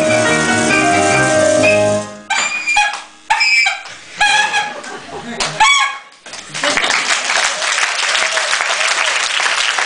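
Live band music on keyboard and double bass stops about two seconds in. It is followed by a run of about six short honks on a toy horn, then audience applause for the last third.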